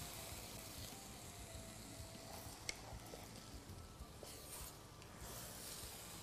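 Soaked bulgur being stirred with a wooden spoon in a hot, steaming pot: a faint sizzling hiss that comes and goes, with soft scraping, and one sharp click a little before halfway.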